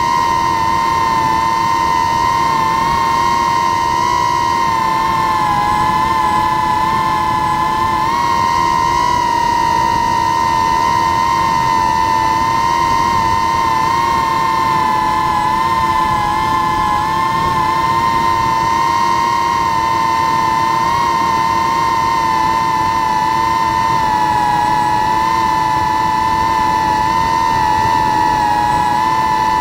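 DJI FPV drone's motors and propellers whining at a steady high pitch in flight, the tone wavering slightly up and down.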